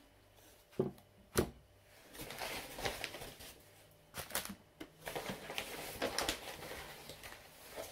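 Carrots set down on a table: two sharp knocks, then rustling and crinkling of food packaging with many light taps as more carrots are laid out and handled.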